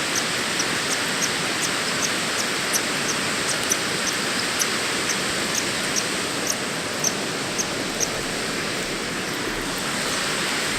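Waterfall rushing steadily, with faint high ticks repeating about twice a second.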